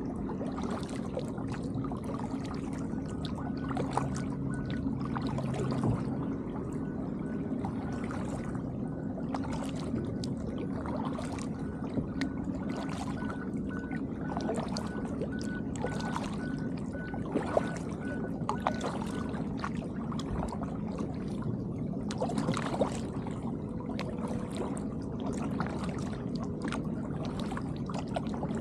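Kayak paddle strokes in calm water: the blades dip, splash and drip about once a second, over a steady low hum.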